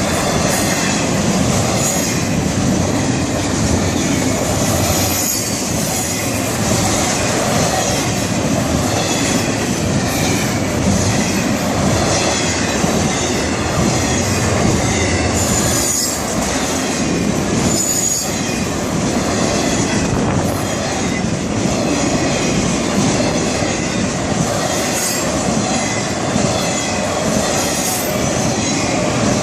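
Florida East Coast Railway freight train rolling past at close range: a steady loud rumble of cars with wheels clacking over the rails and short high-pitched wheel squeals now and then.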